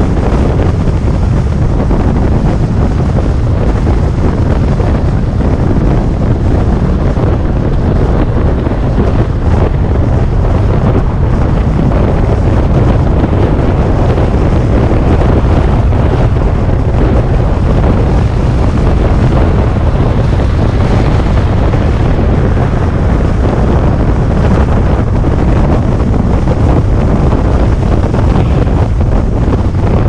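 Steady wind buffeting on the microphone of a camera on a moving car, over the car's road and tyre noise.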